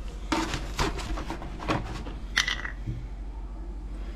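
A few sharp clicks and knocks of kitchen containers and utensils being handled on a counter, over a low steady hum; one clink about two and a half seconds in rings briefly.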